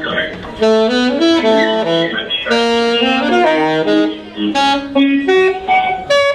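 Live ensemble playing improvised music, with horn lines moving in short stepped notes and several parts sounding at once.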